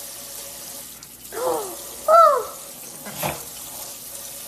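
A parrot gives two short calls, each rising then falling in pitch, the second louder, over the steady hiss of a running tap. A sharp click comes about three seconds in.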